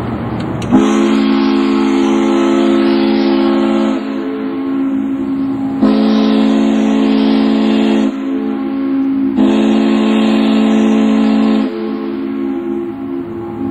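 Ship's steam whistle blowing three long, low, steady blasts, the first about three seconds and the next two a little over two seconds each, with a fainter whistle tone carrying on between them.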